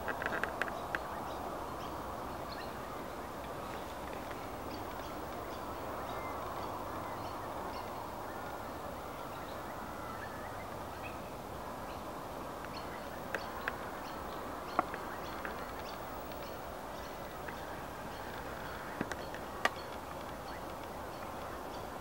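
A steady chorus of waterbirds calling across open water, ducks and black swans among them, with a handful of sharp clicks in the second half.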